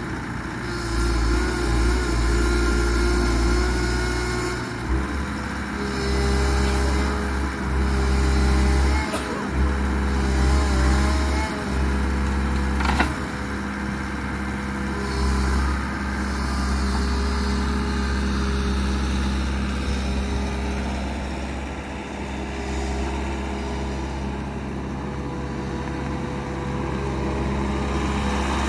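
Bobcat Toolcat 5600 utility vehicle's diesel engine running steadily, with some changes in pitch and one sharp knock about 13 seconds in.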